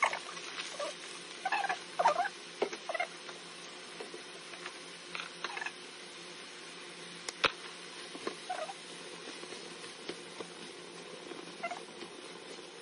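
Minced meat and vegetables frying in a pan over a gas flame: a steady sizzle with light crackling, a few short squeaks and one sharp click about seven seconds in.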